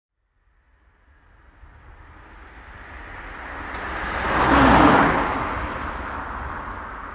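A car passing by: it fades in out of silence, grows steadily louder, is loudest about five seconds in as it goes past, then fades as it moves away.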